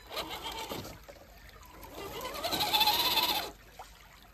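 Electric motor and gearbox of an RC 6x6 crawler truck whining in two bursts as the throttle is worked. The first is short and falls in pitch. The second, about two seconds in, is longer and louder, rising then falling in pitch with a hiss over it.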